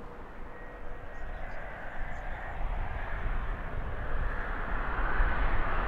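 Jet airliner on low final approach, its engine noise a broad rushing sound with a deep rumble, growing steadily louder as it comes in.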